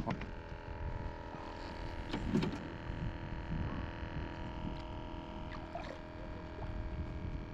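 A faint steady hum of several held tones over a low rumble, with a few light knocks around two seconds in.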